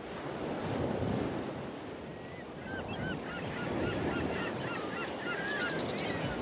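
Steady wind and water noise, with a flurry of short, high bird calls starting a few seconds in.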